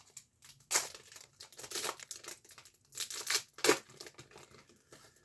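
Crinkling and tearing of a hockey card pack's wrapper as it is opened, in several short bursts.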